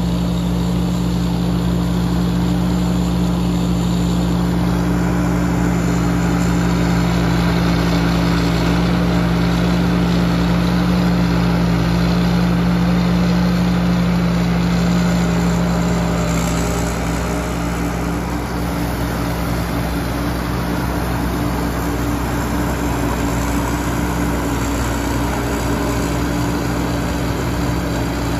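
Tamco S7000 tracked combine harvester running steadily while harvesting corn: a continuous engine hum mixed with the clatter of its cutting and threshing machinery. The sound eases slightly a little past halfway.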